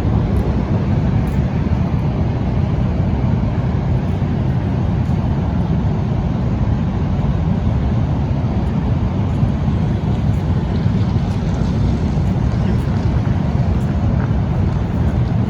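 Steady rushing of a river waterfall: an even, unbroken roar of falling water.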